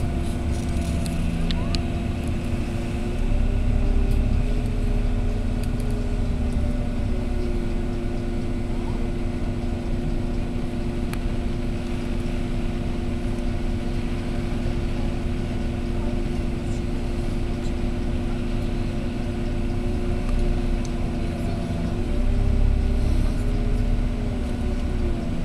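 Volvo B9R coach's six-cylinder diesel engine running steadily, picking up revs twice: its note rises and gets louder about three seconds in and again near the end.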